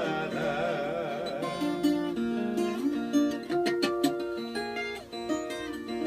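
A man's voice holds the last sung word with a wide vibrato for about a second and a half, then a viola caipira (Brazilian ten-string folk guitar) takes over with a plucked instrumental melody of quick single notes.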